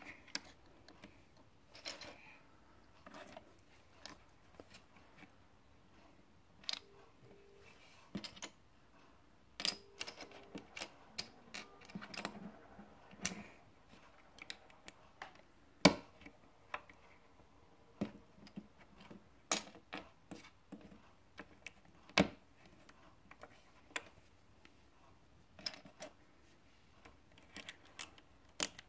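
Plastic Lego bricks clicking and tapping as they are handled and pressed together: scattered, irregular clicks, with a couple of sharper snaps about halfway through and again a few seconds later.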